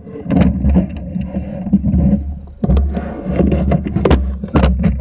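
Water sloshing and splashing against a camera held at the waterline of a small paddled boat, with repeated sharp splashes and knocks and a heavy low rumble that comes and goes.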